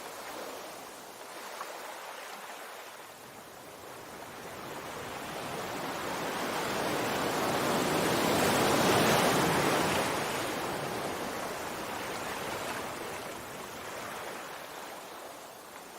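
Sea waves washing on the shore: the surf swells slowly to a peak about halfway through, then recedes.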